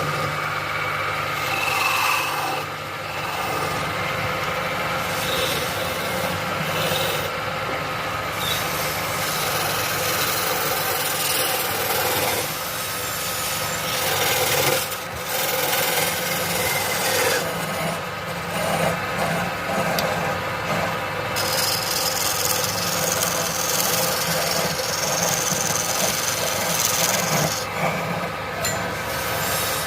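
Wood being rasped or abraded, a continuous scraping of tool on wood that goes on throughout with small rises and falls.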